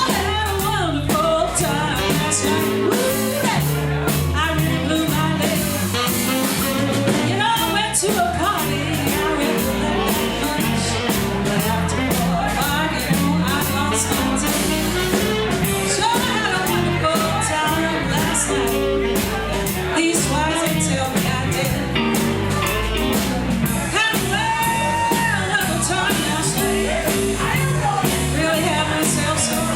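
Live blues-rock band playing, with singing over the band.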